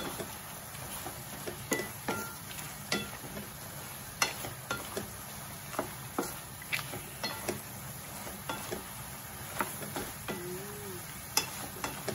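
Shrimp sizzling in a frying pan while a wooden spatula stirs and turns them, its taps and scrapes on the pan coming irregularly about once a second.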